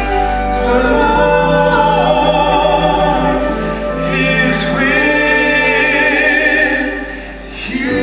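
Live singers performing a song with orchestral accompaniment, holding long notes with vibrato; the music eases off briefly near the end.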